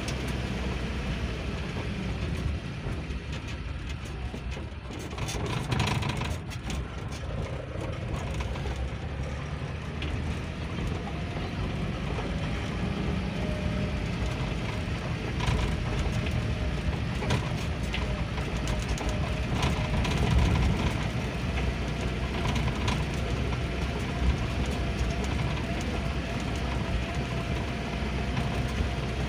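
Suzuki Futura on the move, heard from inside the cabin: steady engine and road noise, with scattered clicks and knocks.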